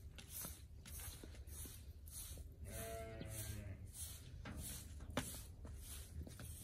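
A farm animal bleats once, about three seconds in, for about a second. A sharp metallic clack follows about two seconds later as the steel door is pulled shut.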